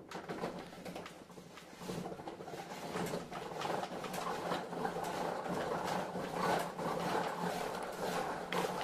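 Hand-cranked wooden marble machine being wound up: the crank and wooden gears turn with a steady clatter of many small clicks as steel marbles begin rolling and dropping through the tracks, growing louder as the machine gets up to speed.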